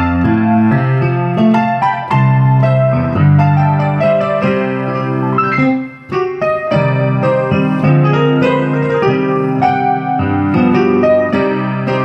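Instrumental music played on a keyboard: a low bass line under chords and a melody, with a brief dip in loudness about six seconds in.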